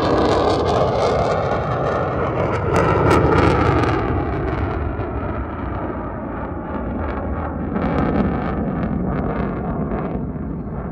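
An aircraft flying overhead with a loud, steady roar. It is strongest early on, then slowly fades while its pitch drops as it passes.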